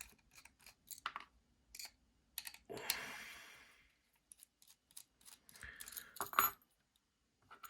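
Light scattered clicks and taps of small metal knife parts, screws and a bit driver being handled, with a brief rustle about three seconds in and a cluster of clicks near the end.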